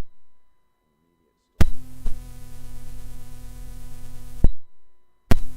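Cassette tape playback between narration lines: sharp clicks start and stop a steady electrical hum with tape hiss, with dead silence between the stretches of hum.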